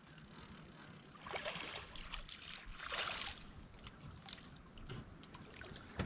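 Water splashing and churning at the surface as a hooked catfish is reeled up beside a boat, with two louder swells about a second and a half and three seconds in.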